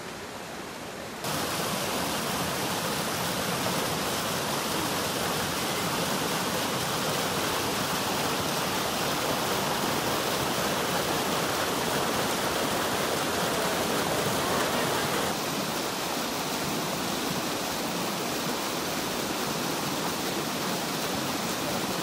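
Mountain stream rushing over boulders in small cascades: a steady rush of white water. It jumps louder about a second in and drops back a little about fifteen seconds in.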